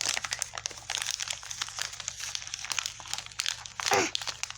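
Plastic bag crinkling and rustling as it is handled, with many small irregular crackles.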